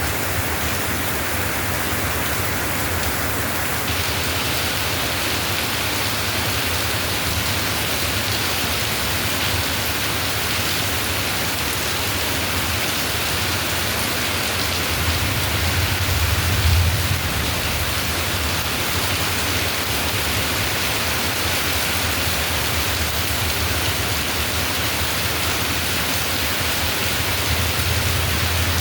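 Steady rain falling in an even hiss, with a brief low rumble swelling up about halfway through.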